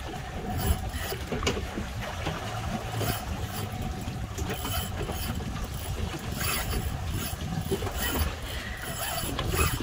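Fishing boat's engine running with a steady low rumble, with irregular clicks and knocks throughout.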